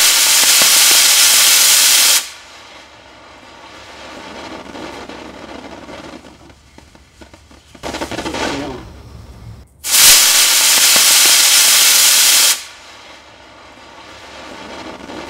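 A solid-fuel model rocket engine built in a glass tube fires on a static stand: a loud, steady rushing hiss of thrust that lasts about two and a half seconds and cuts off abruptly. The same hiss comes again about ten seconds in.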